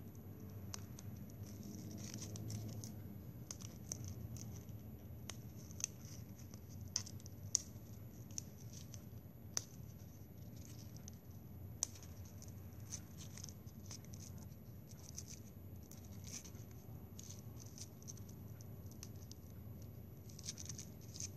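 Plastic drinking straws being handled and fitted together by hand: scattered light clicks, taps and scratches over a low steady hum.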